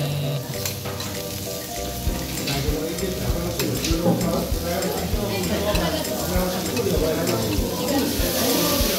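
Cubes of Omi beef sizzling on a hot steel teppanyaki griddle, with sharp clicks and scrapes of metal spatulas on the steel as the chef turns and cuts the meat. The sizzle grows louder and brighter near the end.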